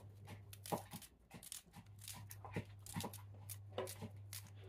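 Close-up eating sounds: irregular short crunching and smacking clicks of food being chewed and torn, over a steady low electrical hum.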